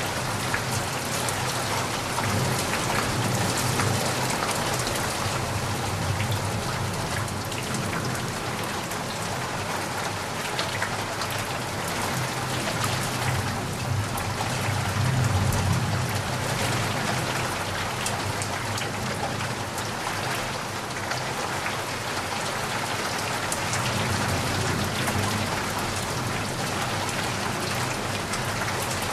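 Steady rain falling, a dense patter of drops with a low rumble that swells about halfway through.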